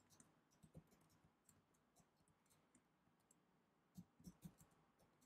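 Faint computer keyboard typing: quiet, irregular key clicks, with a few louder taps about four seconds in.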